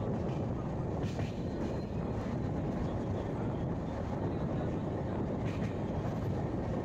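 Passenger express train running along the track: a steady, even rumble of the coach and wheels on the rails, with a few faint knocks about a second in and again near the end.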